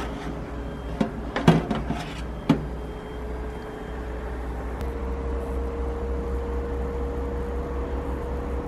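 Metal baking tray scraping and clanking against the wire rack of a countertop convection oven as it is pulled out, with several sharp knocks in the first few seconds, over a steady hum.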